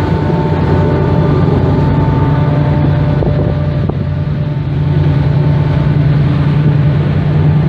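Cape May–Lewes car ferry's engines droning steadily under way, a low hum with a few faint steady tones above it, mixed with wind rushing over the open deck.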